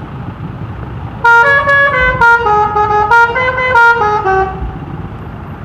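Telolet musical horn on a pickup truck playing a quick tune of short stepped notes, several sounding together, starting about a second in and stopping near the three-quarter mark, over a steady low rumble.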